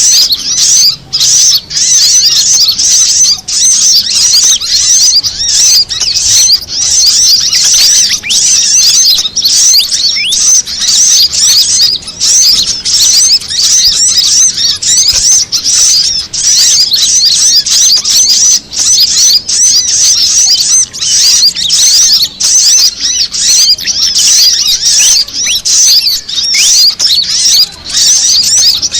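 Bird-lure recording of pied fantail (kipasan) calls layered with sunbird calls (kolibri kelapa and female sogon). It is a dense, unbroken stream of loud, high-pitched chirps and quick twittering glides that overlap one another.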